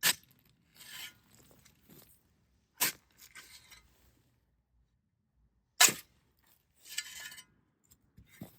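Metal shovel blade striking into hard, gravelly dirt three times, about three seconds apart, each sharp strike followed by a second or so of gritty scraping as the soil is worked loose and shifted.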